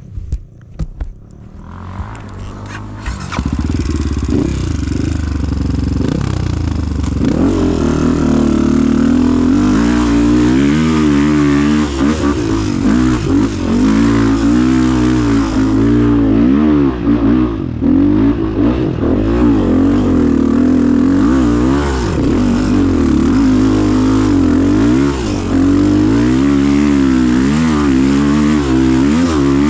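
Off-road motorcycle engine running under load, its revs rising and falling again and again. It comes in loud about three seconds in.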